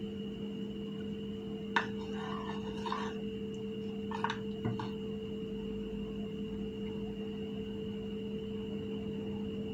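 Brief crisp crackles and clicks from hollow fuchka shells being handled, cracked and filled by hand. There is a sharp click about two seconds in and a couple more around four to five seconds in. A steady hum of several fixed tones sounds underneath throughout.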